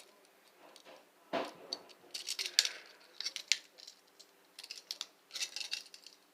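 Metal handcuffs being handled: clusters of sharp clicks and clinking as the cuffs are worked.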